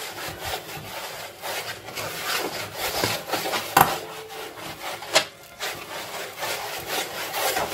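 A hand rubbing and rolling moistened semolina around a wooden bowl, a steady gritty swishing, while the grains are being formed into berkoukes (large hand-rolled couscous). A couple of sharper knocks come about 4 and 5 seconds in.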